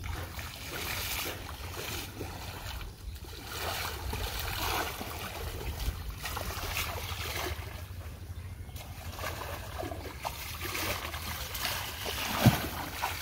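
Pond water splashing and sloshing as a person wades through it hauling a net, with one sharp, louder splash near the end.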